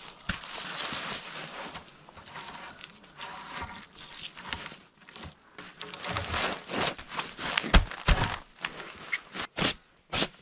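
Rustling and crinkling handling noise, with short crunches and knocks growing more frequent in the second half and a pair of dull thumps about eight seconds in.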